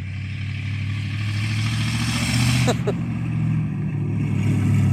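1974 Plymouth Barracuda's small-block V8 running with no muffler on its exhaust, loud and getting steadily louder as the car comes closer.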